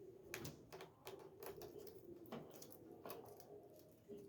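Faint, scattered clicks and taps of small wood slivers being pushed into a stripped screw hole in a door, packing it so the screw will bite again.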